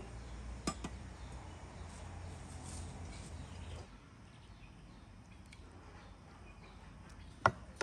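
Light clinks of tableware on a ceramic plate over faint outdoor background, with one sharp clink near the end as a serving spoon touches the plate.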